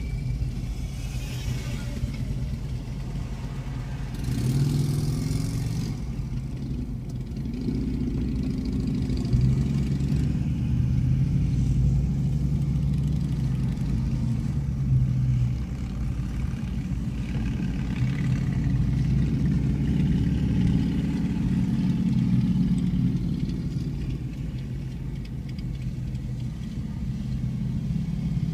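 A moving vehicle's engine and road noise, steady throughout. The engine note rises and eases several times as the vehicle speeds up and slows.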